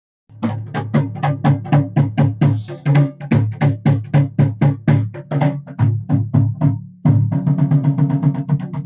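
Nagada kettle drum beaten rapidly with sticks in a steady rhythm, about five strokes a second. A little after seven seconds the playing breaks off and restarts at a faster, denser beat.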